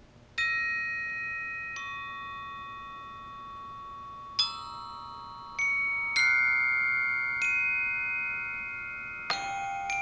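Glockenspiel struck with mallets: sparse single notes and chords that ring on and overlap, the first coming about half a second in. Near the end the strikes come closer together.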